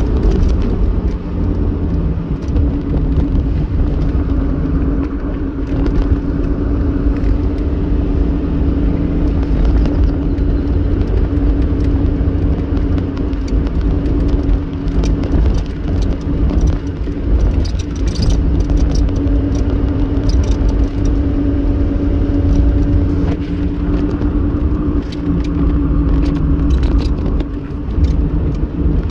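A car driving at road speed, heard from inside the cabin: a steady low rumble with a constant droning hum, and scattered light ticks and knocks.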